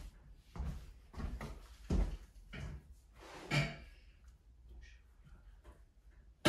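Soft thumps and rustling of hands, gloves, clothing and the treatment couch as a practitioner grips and positions a seated person's head and jaw. The sounds come as several short knocks and shuffles, the loudest a little over three and a half seconds in.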